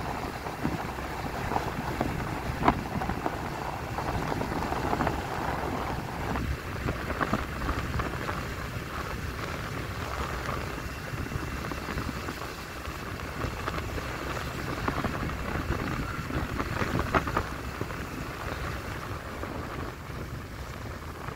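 Riding a motor scooter on a rain-wet road: a steady rush of wind and tyre hiss, with scattered sharp ticks.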